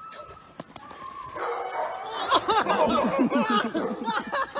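Belgian Malinois puppy whining thinly, then, from about a second and a half in, yapping and barking rapidly and high-pitched while play-biting and wrestling with its handler.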